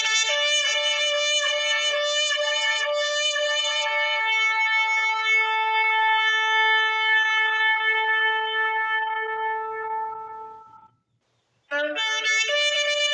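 A shofar blown in one long, held blast of about eleven seconds that fades out near the end. A second blast starts about a second later, entering on a lower note and then jumping up.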